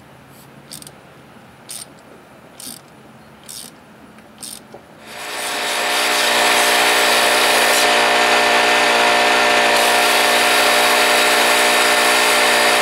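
A few short scraping clicks, then about five seconds in a wet/dry shop vacuum starts up and runs with a steady whine. It is sucking the metal chips out of the freshly tapped spark plug hole of the outboard's cylinder head.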